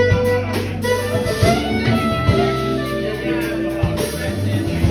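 A live jazz band plays an instrumental passage: electric guitar over held bass notes and steady drum hits, with saxophone.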